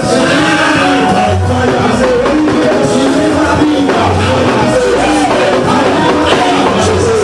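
Praise and worship music: voices singing over a live band, with a bass note that repeats regularly under the melody.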